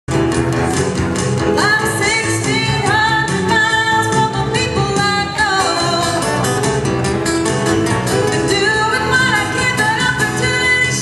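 A song: a sung melody over an instrumental backing, in a country-pop style. It comes in after a split-second dropout at the very start.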